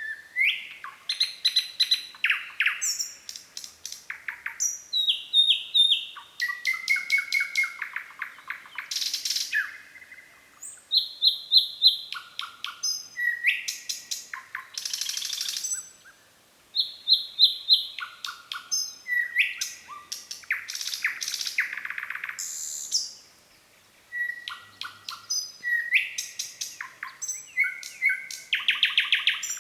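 Nightingale singing: phrases of rapid repeated clicking notes, trills and clear whistles, each phrase a second or two long, with short pauses between them.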